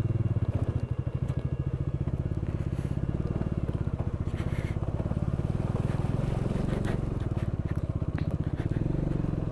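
Bajaj Dominar 400's single-cylinder engine running at a steady, even chug while the motorcycle rides over a wet, rocky track, with a few faint clicks.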